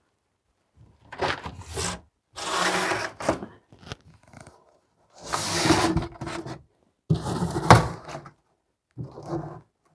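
Flaps of a thick, heavy-duty corrugated cardboard box being folded shut: cardboard scraping and rubbing in about five separate bouts, with a sharp knock about three-quarters of the way through.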